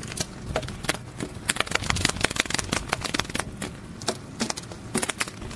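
Butterfly wing-flutter sound effect: a dense, irregular run of soft papery flaps and clicks.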